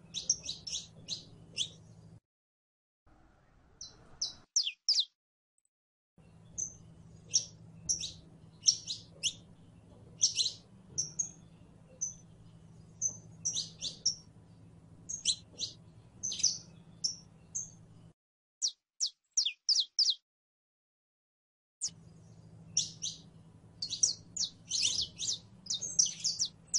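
Saffron finch singing in full song: quick high chirps and short trills strung into phrases, in bursts broken by a few short silences.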